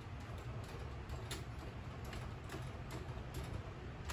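A few scattered light clicks and taps as a drill bit is fitted into a Craftsman drill's chuck, over a steady low hum.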